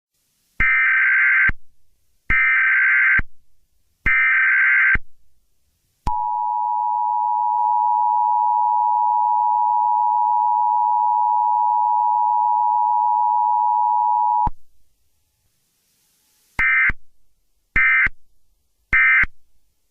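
Emergency Alert System signalling: three roughly one-second bursts of the SAME digital header, then the two-tone attention signal held steadily for about eight seconds and cut off. Near the end come three short end-of-message data bursts.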